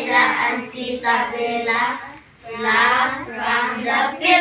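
A group of children singing a song together in unison, in long held phrases with a short break about two seconds in.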